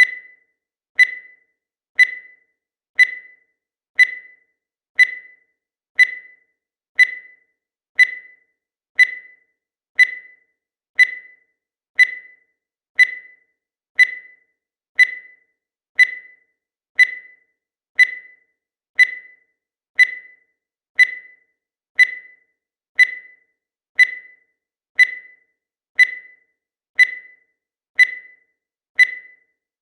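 Digital timer beeping once every second: a short beep on a single pitch, each one fading quickly, in a perfectly even rhythm.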